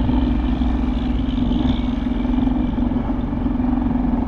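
Small motor pushing the kayak, running at a steady pitch, with a low rumble under it.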